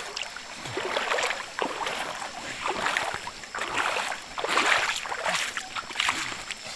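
Footsteps of several people crunching irregularly on a gravel and sand riverbank.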